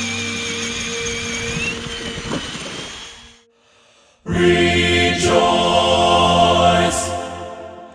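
Background music of sustained, choir-like chords. It fades out about three seconds in, leaves a brief near-silent gap, and a fuller, louder passage begins just after four seconds.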